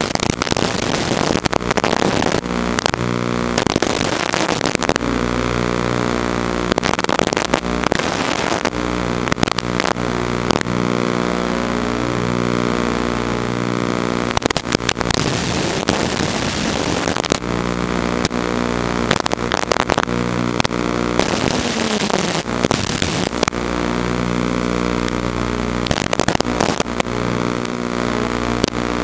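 Audio of an FPV drone's analog video feed: a steady, unchanging electrical buzz with repeated bursts of hissing static where the radio signal breaks up.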